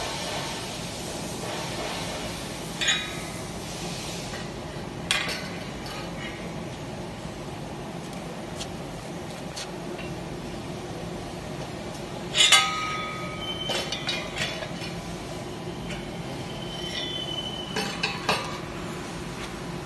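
Irregular metal-on-metal clanks and strikes on welded steel shear studs, several seconds apart, some ringing briefly. The loudest is about halfway through. A steady hum runs underneath.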